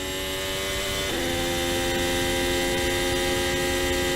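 Formula 1 car's turbocharged V6 engine heard onboard, running at a steady note that steps down slightly in pitch about a second in, then holds.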